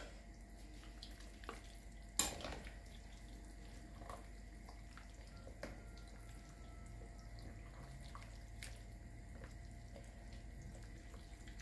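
Wooden spoon stirring diced salmon ceviche in its lemon juice in a glass bowl: faint wet sloshing, with a sharp knock about two seconds in and a few lighter clicks.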